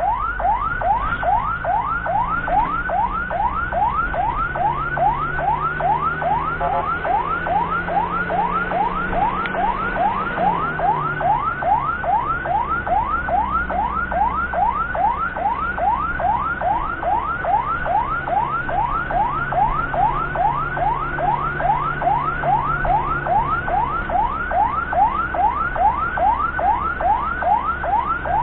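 Ambulance electronic siren on a fast yelp, each wail rising quickly, about two and a half a second, with the vehicle's engine running underneath.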